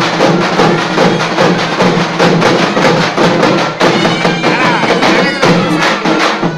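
Loud procession music: rapid, sharp drum strikes over a steady held drone.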